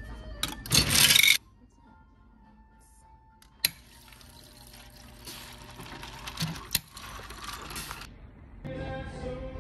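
Restaurant soda fountain filling a plastic tumbler: ice clatters into the cup in a short loud burst about a second in, then after a click the drink pours in a steady hiss for about four seconds and stops. Background music is heard at the start and again near the end.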